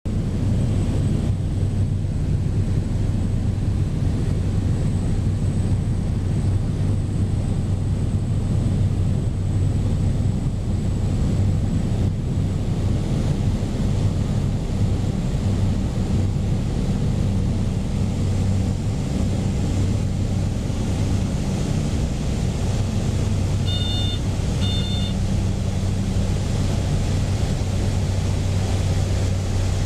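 Inside the cabin of a Cessna 208 Grand Caravan: the single turboprop engine and propeller make a steady low drone with a faint high whine over it. Late on, two short beeps sound about a second apart.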